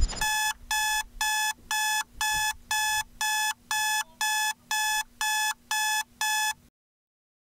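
Electronic alarm beeping: thirteen identical short beeps, about two a second, that stop abruptly.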